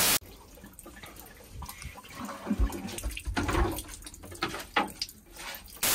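A short burst of static hiss, then water trickling and spraying in through a leak in a narrowboat, irregular and fairly quiet. A second burst of static hiss comes near the end.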